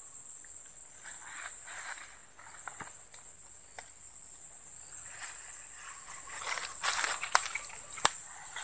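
A steady, high-pitched insect drone, with rustling of grass and vegetation as a fishing line is pulled through the reeds at the pond's edge. A few sharp clicks or snaps come near the end, the loudest about eight seconds in.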